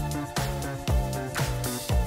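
Background pop music with a disco-funk feel and a steady kick-drum beat, about two beats a second.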